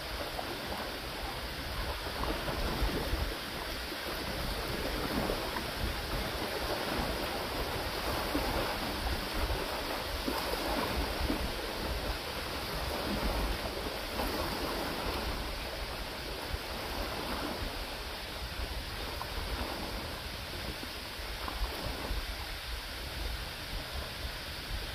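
River waves washing and lapping onto a sandy bank, with wind rumbling on the microphone.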